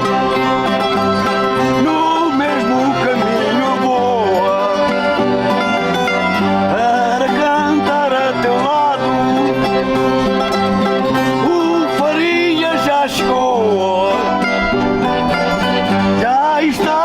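Live folk music: plucked string instruments and an accordion playing, with voices singing over them.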